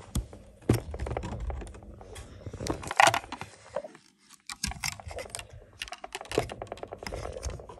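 Fluffy slime being squeezed through the nozzle of a plastic toy ice cream machine, giving a dense, irregular run of small clicks and crackles. A louder click comes about three seconds in, and the clicking briefly stops about a second later.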